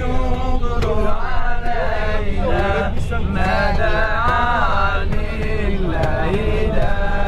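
Male voices chanting a melodic song inside a moving coach bus, with the steady low rumble of the bus underneath.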